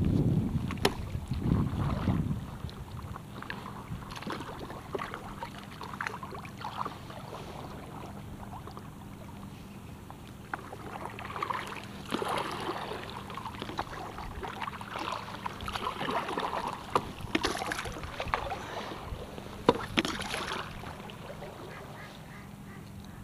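Kayak-style paddle strokes splashing and dripping in river water beside an inflatable stand-up paddleboard, several strokes a couple of seconds apart in the second half. Wind buffets the microphone in the first couple of seconds.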